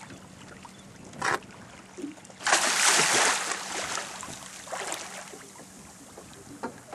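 Water splashing beside a small boat: a short splash about a second in, then a louder one starting sharply a little after two seconds and fading over a second or two, with a faint steady hum underneath.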